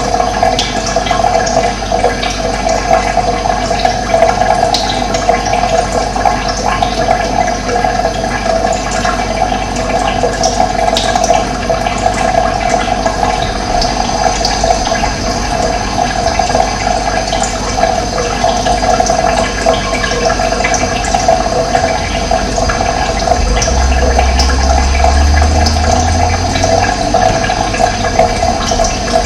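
Running water, a steady, unbroken rush. A low rumble swells for a few seconds near the end.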